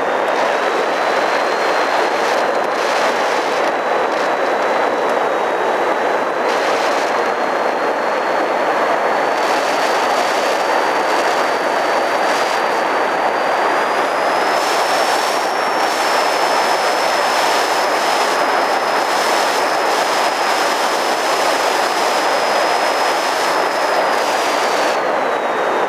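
RC model plane's motor and propeller in flight, heard from the camera on board: a steady rush of air with a high motor whine that climbs a little around the middle and drops near the end.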